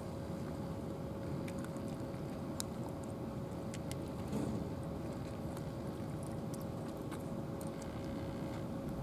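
A steady low rumble with a constant hum, like a motor running, under scattered faint crisp clicks of cats crunching dry kibble.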